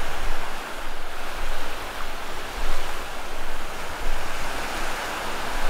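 Surf washing up the beach and swirling through the shallows, rising and falling with each wave, with wind rumbling on the microphone.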